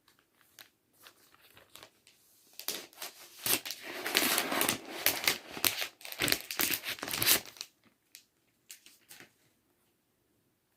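Packaging wrap being crinkled and torn open by hand: a few light rustles, then a dense stretch of crackling from about three to seven and a half seconds in, then a few last rustles.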